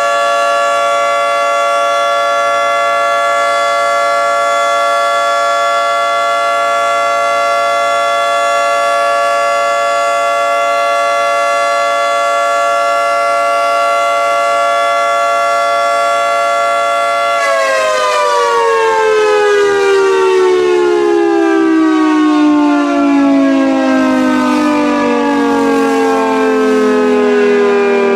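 Federal Signal 2T22 dual-tone electromechanical siren sounding a steady chord at full speed. About 17 seconds in, the pitch of the whole chord starts falling steadily as the rotors wind down at the end of the test.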